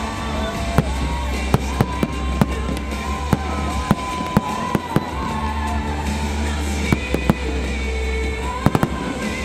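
Aerial fireworks shells bursting in a dozen or so sharp bangs at irregular intervals, with a quick cluster of bangs near the end. Loud music with a deep bass plays underneath.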